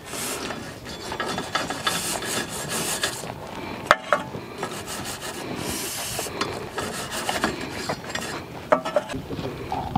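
Wire brush scrubbing rust and grime off the bare rear wheel hub face of a 2005 Mazda 5 in quick back-and-forth strokes, with short hissing bursts of aerosol brake cleaner sprayed onto it. There is a sharp tap about four seconds in.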